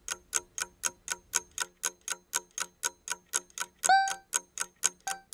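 Countdown-timer sound effect: fast, even clock ticking at about five ticks a second, with a bell-like ding about four seconds in and a shorter ding near the end, counting down the time to answer a quiz question.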